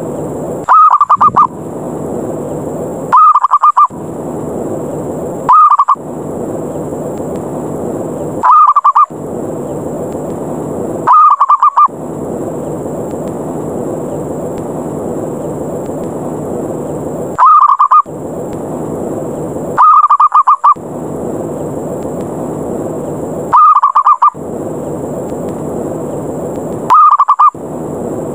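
Zebra dove (perkutut) giving nine short, loud cooing trills, each under a second long and a few seconds apart, with a longer pause mid-way: the aggressive 'ngerot' challenge call used to lure doves down. A steady rushing noise fills the gaps between the calls and cuts out whenever a call sounds.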